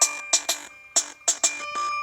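Electronic music with sharp drum-machine beats and synth notes, played through a Lenovo K6 Power smartphone's loudspeaker.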